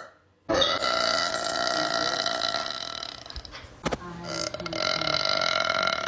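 A person's long, drawn-out burps: one lasting about three seconds, a brief click, then a second long burp starting near the end.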